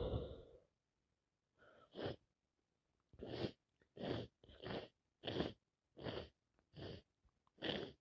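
A woman with a cold sneezing over and over in a fit: a long sneeze at the start, another about two seconds in, then a quick run of seven short sneezes less than a second apart.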